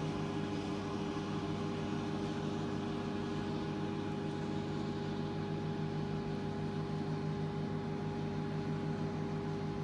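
Last-mile diesel engine of a Siemens Vectron electric locomotive running at a steady pitch while it shunts a string of freight wagons.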